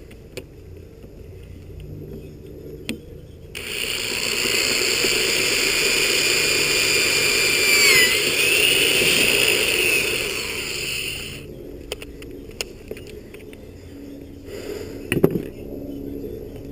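A small motor whines steadily for about eight seconds, switched on and off abruptly, its pitch dipping briefly under load about halfway through. A few clicks and knocks follow near the end.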